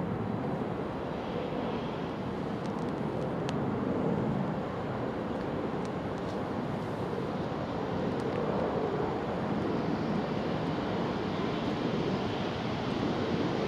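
Steady low rumble of the distant GBRf Class 66 diesel locomotives approaching, their two-stroke engines droning, swelling slightly now and then.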